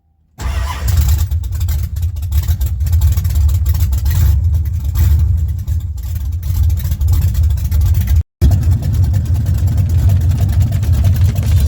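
Ford 351 Windsor V8 with a TFS stage 1 cam running loud through long-tube stainless headers, a heavy low rumble with an uneven, pulsing beat. It cuts out briefly about eight seconds in, then picks up again.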